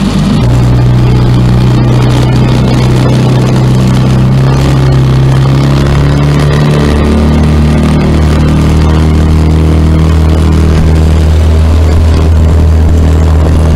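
Honda 7.5 hp four-stroke outboard motor running under way, its steady engine note shifting about half a second in and again about seven seconds in as it is opened up to wide-open throttle. It runs with no significant vibration on rebuilt shock mounts.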